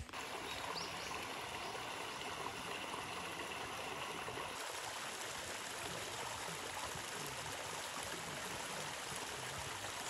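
Small mountain stream running, water trickling down a rock ledge into a shallow rocky pool: a steady, even rush of water.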